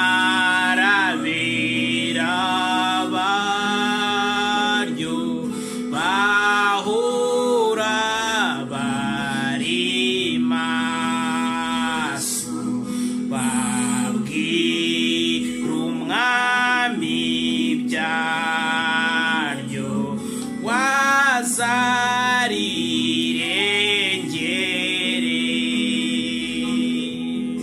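A man singing a slow gospel hymn in Kinyarwanda, in long held phrases with vibrato.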